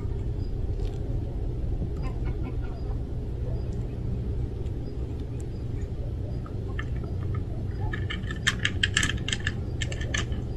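A cat crunching dry kibble from a tray. Scattered clicks early on give way to a dense run of quick, sharp crunches about eight seconds in, over a steady low background rumble.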